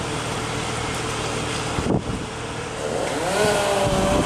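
Steady rushing storm noise of wind and rain, with a brief knock about two seconds in. About three seconds in, an engine revs up and then holds a steady pitch.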